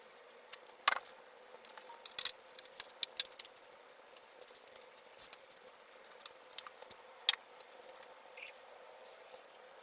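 Irregular light clicks and taps from small objects being handled, over a faint steady hum.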